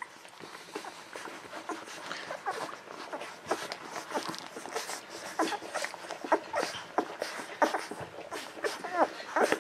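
Golden retriever puppies, 11 to 13 days old, squeaking and whimpering while nursing: many short, high, overlapping squeals, with soft clicks in between. The loudest squeal comes near the end.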